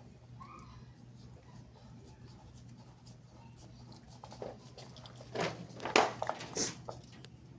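A few sharp knocks and clicks of hardware being handled while a screen door closer is mounted, over a steady low hum. The loudest knock comes about six seconds in.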